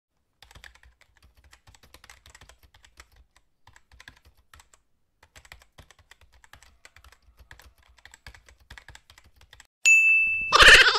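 Soft, irregular computer-keyboard typing clicks, a typing sound effect. About a second before the end a loud, steady high beep cuts in, followed by a louder burst of noise.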